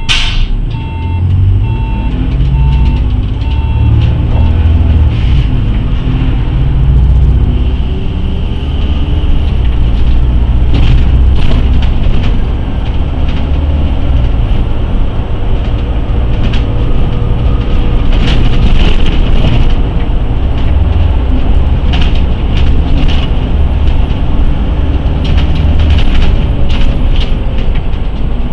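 City bus engine and drivetrain heard from inside the cabin as the bus pulls away from a stop and drives on, the engine note rising with acceleration, with cabin rattles throughout. A repeated beeping in the first few seconds, typical of a bus door-closing warning.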